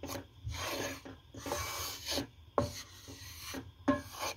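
Wooden spatula scraping and stirring dry flour around a non-stick frying pan in repeated rubbing strokes, with a couple of sharper knocks. The flour is being dry-toasted over low heat and kept moving so it does not burn.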